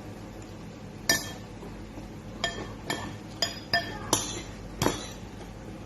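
Utensils clinking against dishware while eating: about seven sharp, irregular clinks, each with a brief ring.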